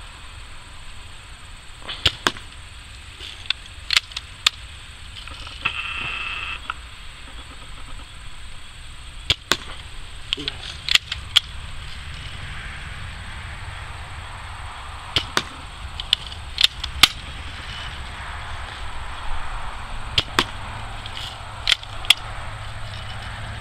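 Daisy Red Ryder lever-action spring-air BB gun being cocked and fired again and again: sharp clicks and snaps every few seconds, often in quick pairs, over a low background rumble.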